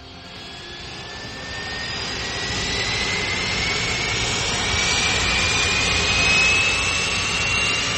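Aircraft turbine engine spooling up: a loud rushing noise that swells over the first few seconds and then holds, with a high whine climbing steadily in pitch.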